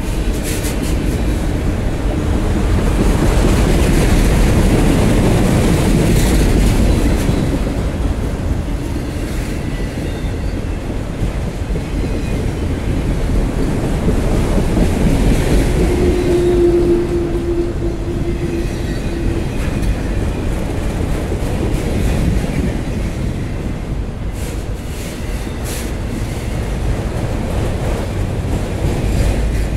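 Empty autorack freight cars rolling past, with a steady rumble and clatter of steel wheels on the rails. A brief wheel squeal comes about 16 seconds in, and a few sharp clanks come near the end.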